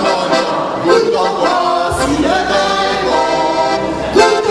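A small group of men and women singing a song together into microphones, with instrumental accompaniment.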